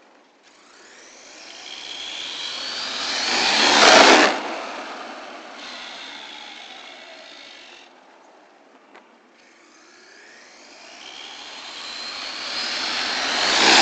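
1/10 scale 4x4 short course RC truck with a 3650 3500KV brushless motor and 17-tooth pinion on 4S, running at full throttle past the microphone twice. Its motor and gear whine climbs in pitch and loudness to a peak about four seconds in, falls away as it runs off, and builds again to a second pass at the end.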